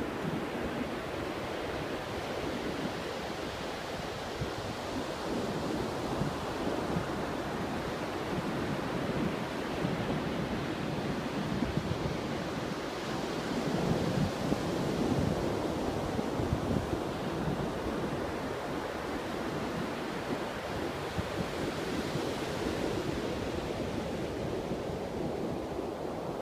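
Surf breaking on a sandy beach: a continuous wash of waves that swells louder around the middle.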